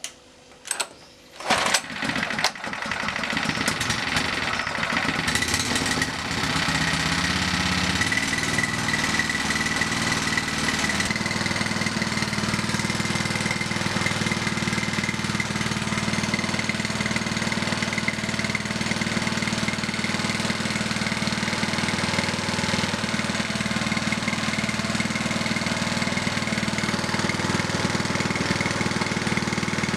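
Small petrol engine of the kind that drives water pumps and gensets being pull-started: two short bursts about a second apart, then it catches and runs steadily, its repaired flywheel magneto firing.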